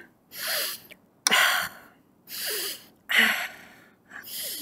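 A woman acting out a sleeper's heavy breathing: about three slow breaths, each a softer breathy puff followed by a sharper one.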